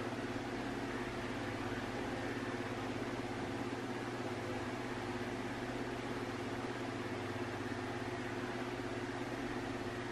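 A steady low machine hum with a faint hiss.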